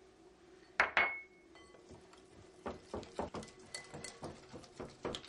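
Wire whisk beating batter in a glass bowl: one sharp clink with a brief ring about a second in, then from about halfway a run of quick, uneven clinks as the wires strike the glass.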